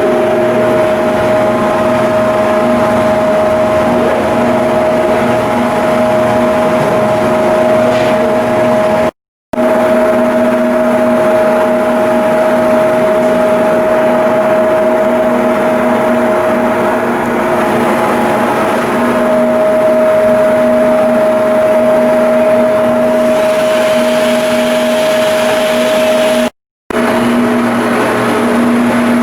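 Machinery running with a steady, multi-toned hum, broken twice by a brief drop to silence, once about nine seconds in and once near the end.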